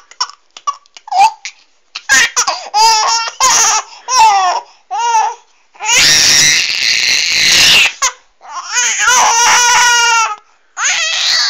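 Baby laughing in repeated high-pitched bursts while being tickled, with one long, breathy laugh of about two seconds starting about six seconds in.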